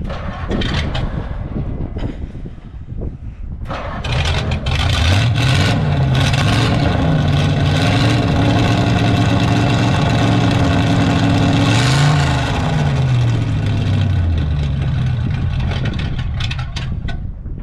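A large vehicle engine on a farm running and being revved, its pitch rising and falling several times; it grows louder about four seconds in and drops back near the end.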